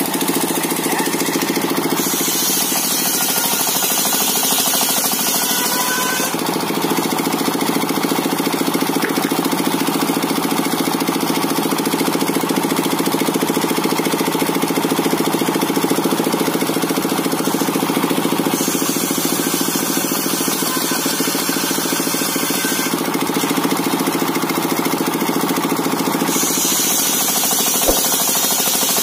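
Engine-driven circular saw (serkel) running steadily. Three times a higher hiss is added over the engine, as the blade cuts through coconut wood.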